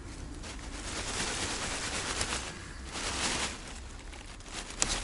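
Rustling and crunching of dry leaves and horseradish stalks as someone steps and works among them, uneven and swelling in patches, with one sharp click near the end.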